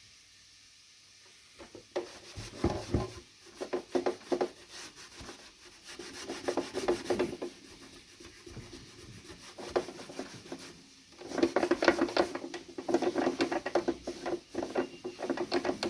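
A brush scrubbing the casing of a Panasonic RX-FS50 radio cassette recorder: bursts of quick scratchy strokes starting about two seconds in, easing off around the middle and busier again near the end.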